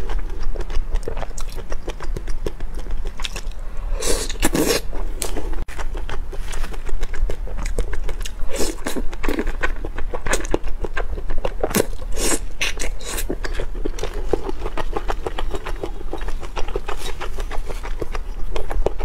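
Close-miked biting and chewing of oden: skewered fish balls, fish cakes and fried tofu, with wet mouth sounds, in many short bites and louder clusters about four, nine and twelve seconds in. A steady low hum runs underneath.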